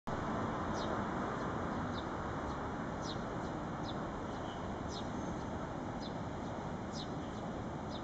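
Common kingfisher giving a short, high, thin call that falls in pitch, repeated about once a second over a steady low background rumble.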